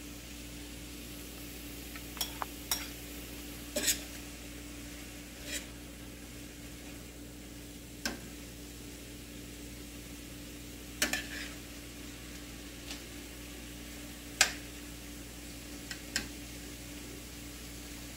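Metal spoon stirring diced vegetables in a stainless-steel frying pan: irregular clinks and scrapes against the pan over a soft, steady sizzle of the vegetables frying.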